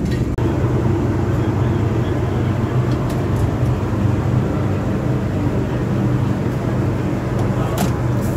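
Steady low mechanical drone with a few light clicks, and a sharper metallic clink near the end as a metal tray is slid out of a steamer cabinet.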